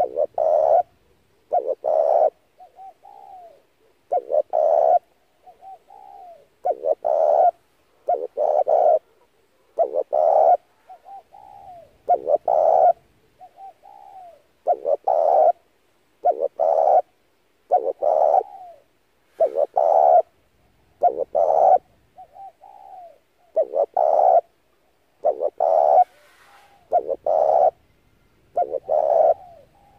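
Spotted dove cooing over and over, loud coo phrases about every second and a half, with softer, fainter coos in between.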